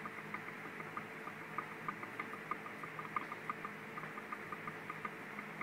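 Small screws being driven into a Traxxas Slash 4x4's front shock tower with a hand driver: faint, irregular light ticks, several a second, over a steady low hum.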